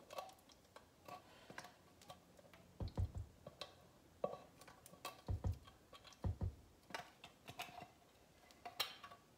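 Faint light taps and clicks of an opened metal can of condensed soup held upside down and shaken over a slow cooker's crock, with three dull thuds about three, five and six seconds in.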